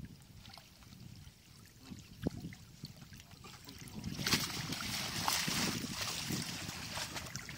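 Water splashing and sloshing as a wet cast net is hauled up out of shallow muddy water by hand, with water running off the net. The splashing grows louder about four seconds in.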